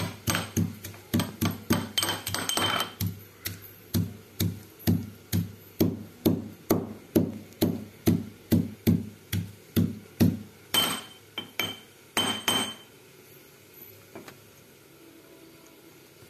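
Roasted dried red chillies being pounded to flakes with a metal pestle in a stainless-steel mortar (imam dasta), a steady beat of about two to three clinking strokes a second. Near the end it turns to a few grinding scrapes and then stops, about three seconds before the end.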